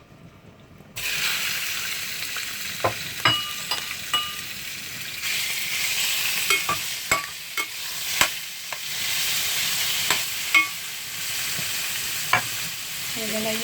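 Pork chop frying in hot oil in a frying pan: a loud sizzle starts suddenly about a second in as the meat goes into the pan, then carries on steadily. A utensil clicks and knocks against the pan a dozen or so times as the meat is stirred.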